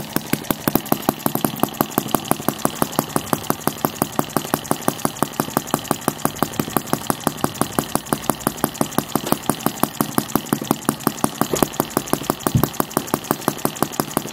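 Model 1 cc sideshaft engine running steadily, with an even beat of about five sharp pops a second, driving a belt-driven brass duplex pump.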